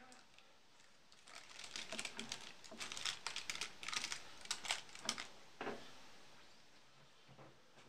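Paper crinkling and rustling as it is handled, a quick irregular run of crackles lasting about four seconds and ending with a sharper rustle.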